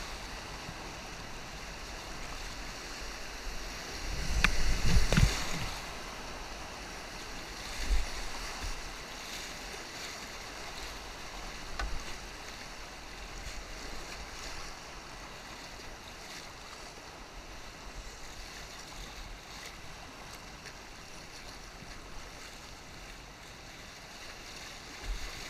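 Steady rushing of river water around a kayak on the move. A louder burst of water or bumping comes about four seconds in, with two shorter ones later.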